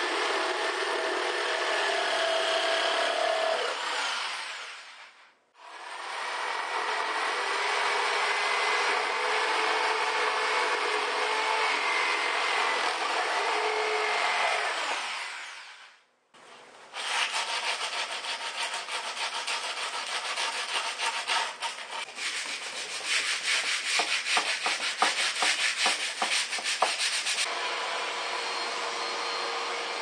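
Corded jigsaw cutting through half-inch plywood, its motor pitch wavering under load, twice broken off by a brief silence. After the second break a vacuum takes over, rattling as it sucks up sawdust, then running steadily near the end.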